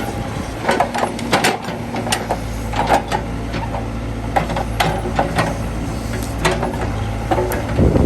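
Backhoe engine running steadily, with repeated sharp metallic clanks and knocks over it.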